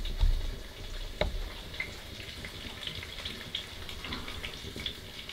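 Steak sizzling in butter in a cast iron skillet set on the flames inside a wood stove: a steady frying hiss scattered with small pops and crackles, with a sharper pop about a second in.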